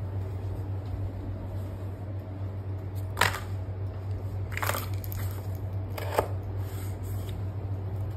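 Three short crunching scrapes of cardboard packaging being handled, about a second and a half apart, the first the loudest, over a steady low hum.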